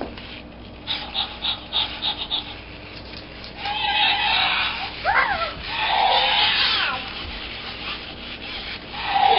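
Zoomer Dino robotic dinosaur toy making its electronic creature sounds through its speaker: a quick run of short pulses, then raspy growls with a brief squealing call that rises and falls in pitch about halfway through.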